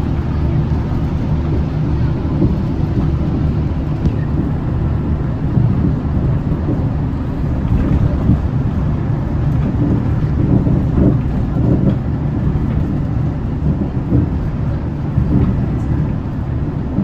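Hyundai Green City diesel bus underway, heard from inside the cabin: a steady low engine drone and road rumble, with a few small knocks along the way.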